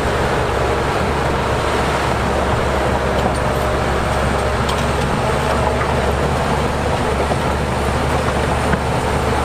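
Heavy diesel earthmoving machinery running steadily under load, with a low engine drone and a few faint clanks.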